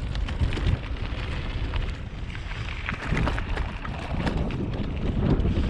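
Wind buffeting the camera microphone as a bicycle rolls along a dry gravel track, with a steady low rumble and scattered small crunches and clicks from the tyres on the stones.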